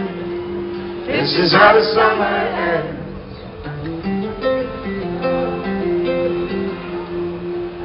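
Live band playing, heard from the crowd: acoustic guitars strummed over steady keyboard notes. About a second in, loud voices close to the microphone rise over the music for about two seconds.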